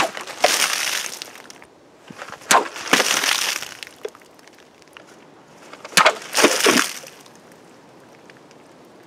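A steel combat dagger slashing through hanging plastic bottles full of water, three times. Each cut is a sharp hit followed by about a second of water splashing and spraying out.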